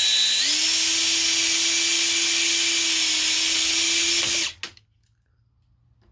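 Electric drill running as it drills out a grub screw pinning the clutch pedal to its shaft; its whine steps up in pitch about half a second in, holds steady, then stops about four and a half seconds in.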